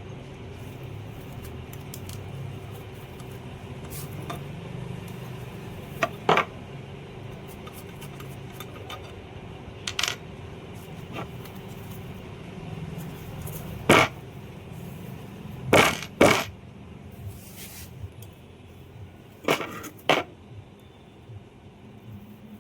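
Sharp metallic clinks of small metal parts or tools being set down and knocked together during a motor repair, about eight in all and several in quick pairs, over a steady low hum.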